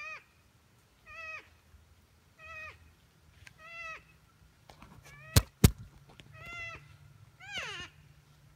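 An unseen animal's high, whining, meow-like call, repeated about every second and a quarter, each call a short note that rises and falls. The uploader takes it for a porcupine. Two sharp clicks come about halfway through.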